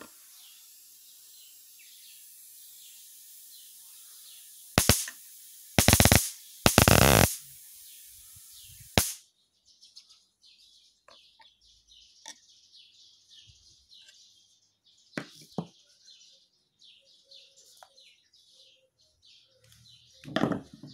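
Homemade high-voltage electric mouse trap's generator module hissing with a faint high whine, broken by several loud cracks of sparks arcing across the trap's bare wires; the hiss cuts off about nine seconds in, leaving faint bird chirps with a few sharp snaps.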